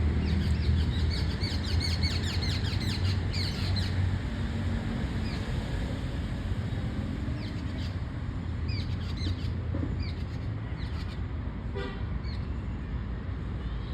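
Flock of birds chirping at dusk, a dense chatter of short calls for about four seconds that thins to scattered chirps, over a steady low rumble of traffic.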